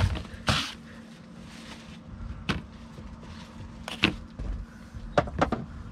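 Handling noise: several light knocks and clicks as a glass jar and a paintbrush are set down on cardboard, over a faint steady hum.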